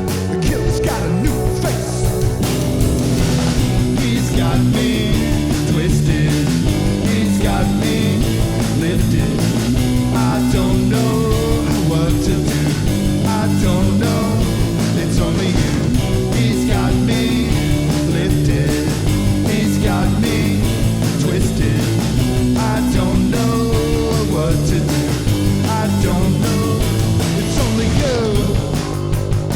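Rock band playing a song: electric guitar and bass with a steady groove, and a voice singing over it at times.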